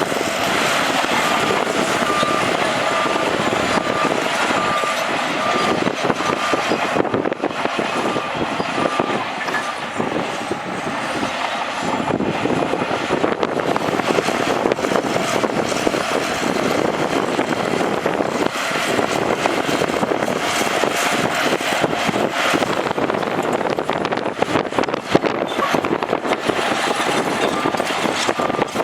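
Crawler bulldozer working, its engine under load with track clatter and rock and dirt grinding as it pushes. A reversing alarm beeps at an even pace for about the first nine seconds and again near the end, as the dozer backs up.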